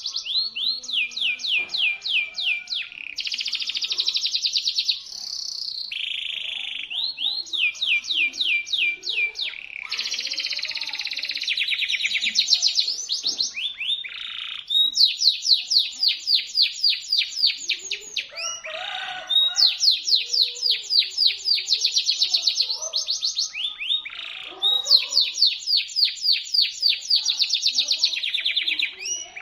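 Local canary singing a shrill, sharp song of long fast rolls: runs of rapidly repeated high notes, each lasting a second or more, one after another with only brief breaks.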